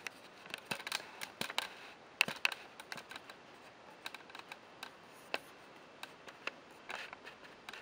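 Handling noise from a Polaroid 636 Closeup instant camera: irregular small clicks and taps of fingers and the hard plastic body as the camera is turned in the hands, with a few louder clicks about two seconds in and near the end.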